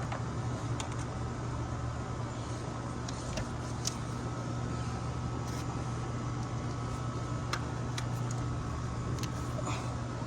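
Steady low hum of a running electric motor, unchanging throughout, with a few faint light ticks and clicks over it.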